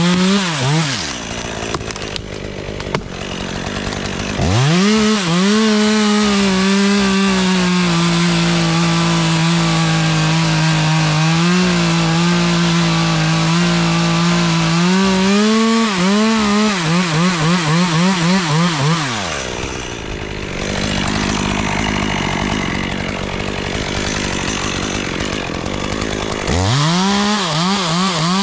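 Two-stroke chainsaw cutting wood. It revs up about four seconds in and holds at high revs for about ten seconds, then the throttle is blipped several times before the saw drops to idle. It revs up again near the end.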